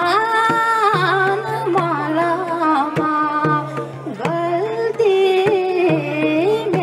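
A woman singing a Nepali song into a handheld microphone in long, wavering notes, over a steady low instrumental accompaniment.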